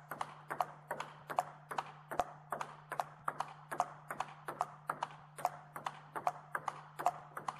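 Table tennis ball in a steady backhand push rally, the ball alternately striking the rubber of the penhold paddles and bouncing on the table. It makes crisp, evenly spaced clicks, about four a second.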